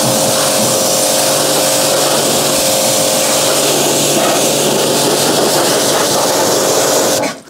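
Pressure washer running, a steady loud hiss of water jet with the pump's hum under it, rinsing cleaner off the underside of a car's rear wheel arch and springs. It cuts off suddenly near the end as the trigger is released.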